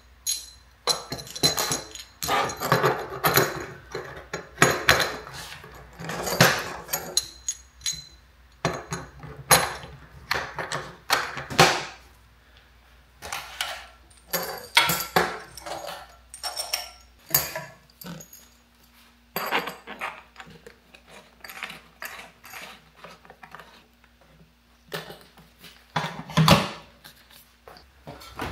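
Metal hose fittings and connectors clinking, tapping and rattling as they are handled and coupled onto a robot-arm pedestal stand, in irregular bursts. A steady hum joins for several seconds in the second half.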